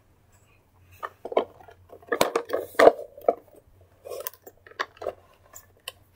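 Hard plastic clicks and knocks with soft rustling as a plush toy is pushed into the seat of a pink plastic toy convertible and the car is moved about. The loudest knocks come a little after two seconds in and near three seconds.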